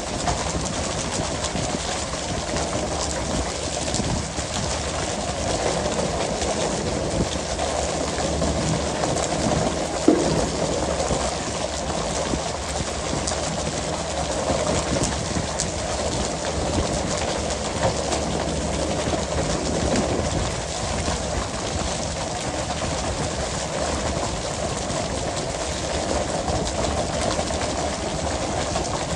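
Working sound of a pole-and-line tuna boat: the engine runs with a steady hiss of sea and spray, over frequent clatter and thuds as skipjack tuna are flipped onto the deck and poles knock. A sharp knock stands out about ten seconds in.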